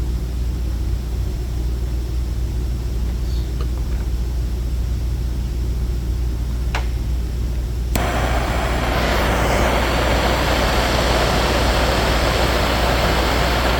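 A steady low hum with a single sharp click about seven seconds in. About a second later a loud, even rush of blowing air starts abruptly and holds steady: a hot-air tool running, used to heat and shape plastic.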